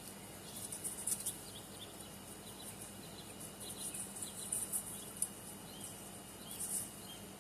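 Outdoor insects buzzing in short high-pitched bursts, with small bird chirps, over a low steady hum.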